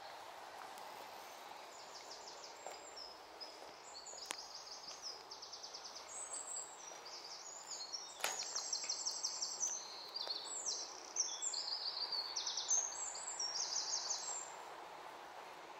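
A small songbird singing a long, fast song of high, rapidly repeated trilled notes that shift in pitch from phrase to phrase, louder from about halfway and stopping shortly before the end, over faint steady background noise.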